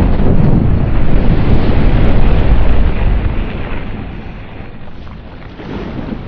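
A deep, rushing rumble with no clear pitch, from a custom giant-monster sound effect. It is loudest for the first three seconds, dies down, then swells slightly again near the end.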